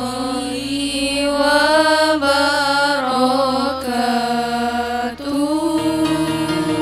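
A group of girls chanting Arabic nazom verse in unison, a slow melody of long held notes that step up and down.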